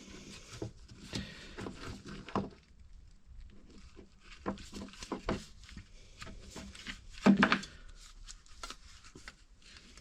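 Hands working a recoil pull-start, turning the starter pulley and cord: scattered light clicks, knocks and rustling, with a short louder creak or grunt about seven seconds in.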